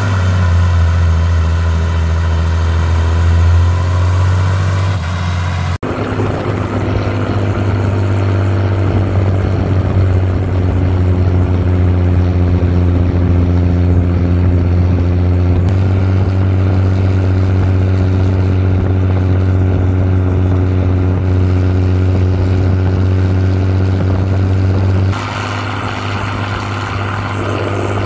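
Fendt 311 LSA tractor's diesel engine running steadily while driving with a trailer, heard close to the exhaust stack. The note changes abruptly about 6, 16 and 25 seconds in, where separate clips are joined.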